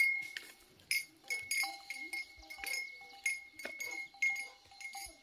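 Small metal cowbell clinking as the cow walks, about three strikes a second, each ringing briefly.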